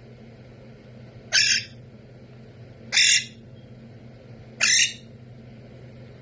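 Green parrot giving three short, harsh squawks about a second and a half apart, over a steady low hum.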